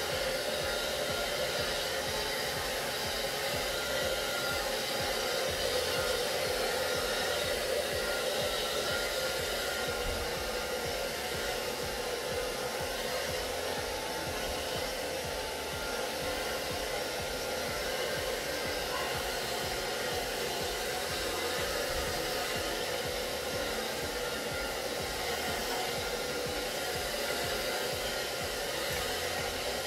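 Hand-held hair dryer running steadily, a continuous even blowing whir that doesn't change.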